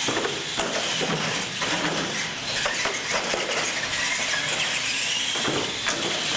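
Radio-controlled monster trucks racing on a concrete floor: a whining electric drive that rises and falls in pitch, with tyre noise and clatter as they cross the ramps.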